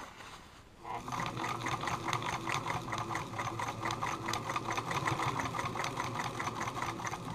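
Pfaff 160 sewing machine running steadily, stitching down a rip in a coat. Its needle makes a fast, even ticking that starts about a second in and stops just before the end.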